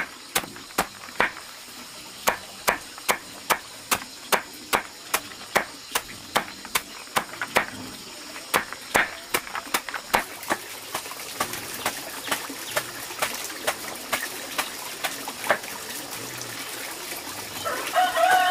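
A large knife chopping a bundle of leafy green stems against a wooden board, about three quick chops a second, thinning to slower, fainter chops after about ten seconds. A brief animal call near the end.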